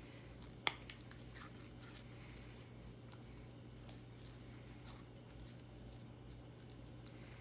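Sprinkles slime being handled: small sticky crackles and pops, with one sharp click just under a second in and most of the crackling in the first two seconds.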